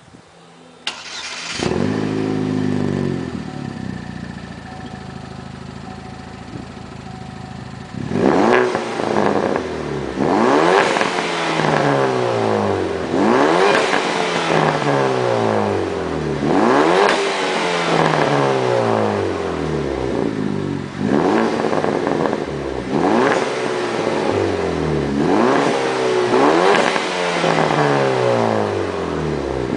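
Turbocharged 2009 Chevrolet Cobalt SS four-cylinder with a catless downpipe, starting about a second in and settling to idle. From about eight seconds it is revved again and again, one quick rev every two seconds or so, each rising and falling back.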